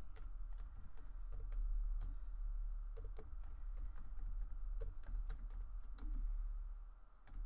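Typing on a computer keyboard: a quick, irregular run of keystroke clicks, pausing briefly near the end, over a steady low hum.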